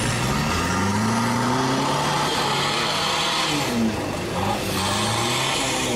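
Off-road 4x4 truck engine revving hard under load as it drives through deep mud and water, its pitch rising and falling, over the rush of splashing water.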